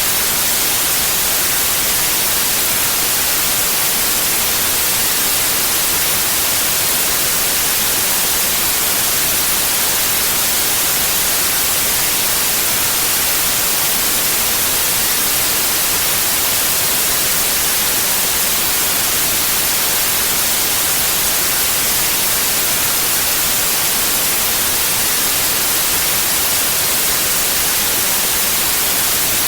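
Steady, unchanging white noise, an even hiss across the whole range, strongest in the treble.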